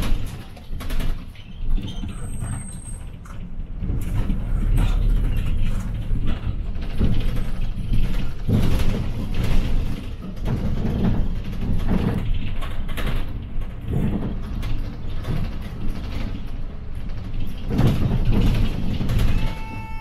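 Inside a city bus under way: steady low engine and road rumble that swells and eases, with frequent rattles and knocks from the cabin, including a sharp knock at the very start.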